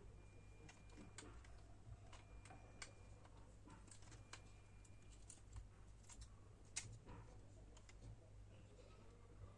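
Faint, irregular clicks and taps of small plastic goggle parts and tools being handled during disassembly, with one sharper click about two thirds of the way in. A faint high thin tone sounds briefly three times in the first half.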